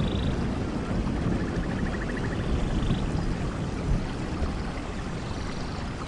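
Steady rush of falling water, heaviest in the low end, with a few short high trills over it, one a rapid pulsing run about a second in.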